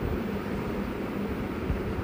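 Steady rushing background noise with irregular low rumbles.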